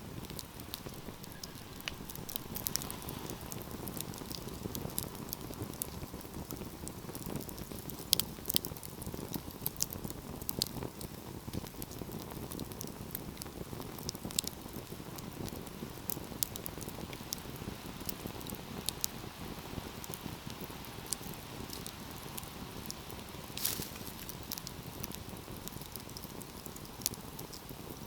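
Wood fire in a fireplace burning with a steady low rush of flame and frequent sharp crackles and pops. A few louder pops come about eight seconds in and again about twenty-four seconds in.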